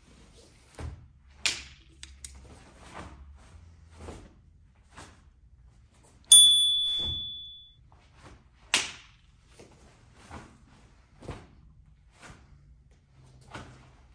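Sharp snaps of a taekwondo uniform and thuds of bare feet on the floor as a poomsae form is performed: about a dozen short strokes at an uneven pace, the loudest about a second and a half in and near nine seconds in. About six seconds in, a loud, high ringing tone sounds and fades out over about a second and a half.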